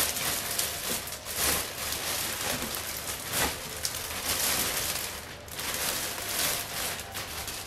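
Thin clear plastic wrapping crinkling and rustling in irregular bursts as it is pulled off by hand.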